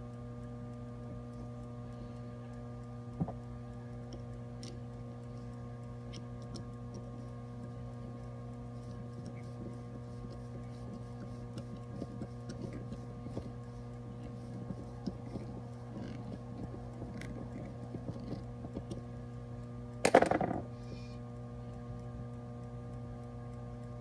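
Steady mains hum under faint clicks and scrapes of a rubber gas hose being worked onto a brass hose barb and a screwdriver turning its hose clamp. About twenty seconds in there is one short, loud handling knock.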